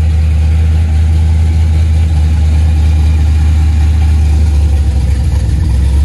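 LS V8 engine in a Camaro Z28 idling steadily, with a deep, even low note.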